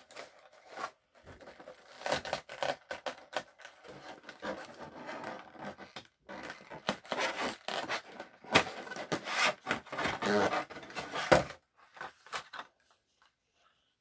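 Thin clear plastic packaging crackling and scraping as a headset is worked out of its moulded tray by hand. It comes as a run of irregular crinkles and sharp clicks that dies away near the end.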